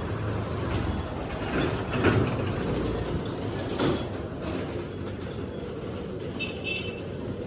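Steady low rumble and hiss of vehicle noise, with a few brief knocks about two and four seconds in and a short high chirp near the end.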